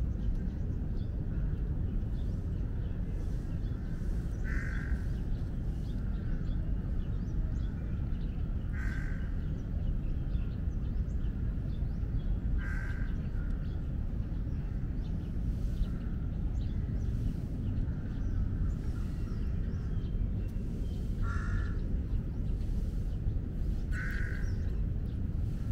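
A bird calling outdoors: five short, separate calls spaced several seconds apart, over a steady low background rumble.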